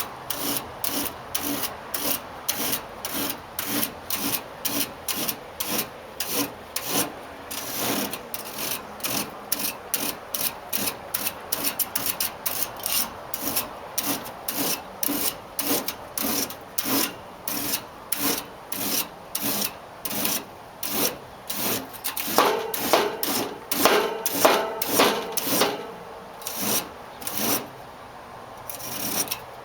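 A small comb scraping through an air conditioner condenser's cooling fins to straighten them, in quick, even strokes about two a second. Between about 22 and 26 seconds in, the strokes get louder and take on a squeaky tone; they pause briefly near the end.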